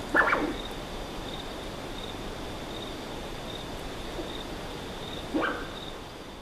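Common ringtail possum giving two short, wheezy calls, one just after the start and one about five seconds in, over a steady high insect chirping in an even pulse. The sound fades out near the end.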